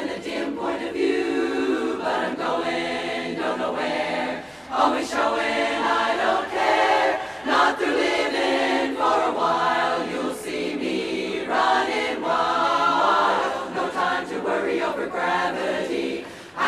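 Women's barbershop chorus singing a cappella in close harmony, many voices together.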